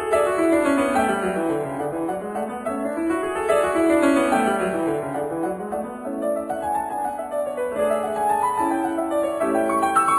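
Background piano music: flowing runs of notes sweeping down and up in pitch, settling into repeated chords near the end.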